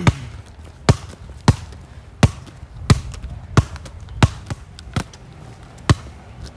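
A steady run of sharp thumps, about one every two-thirds of a second, each short and distinct.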